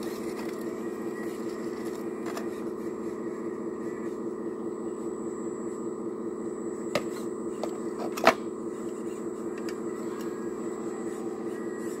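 Radio-controlled hydraulic excavator's electric pump running with a steady hum as the bucket works among stones. A sharp click comes about seven seconds in, and a louder hard knock just after eight seconds, as the bucket strikes rock.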